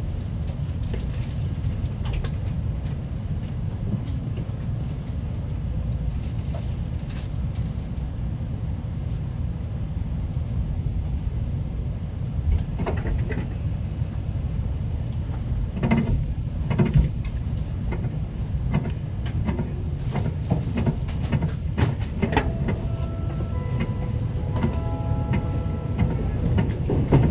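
Seibu 10000 series limited express train running, heard from inside the car: a steady low rumble with scattered clacks and knocks. Near the end come a few short steady tones at different pitches.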